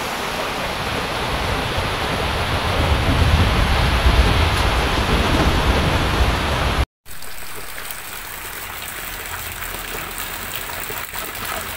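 Swollen, muddy river in flood, rushing loudly with a deep rumble. After a sudden cut about seven seconds in, softer steady rain with a stream of runoff water splashing onto steps.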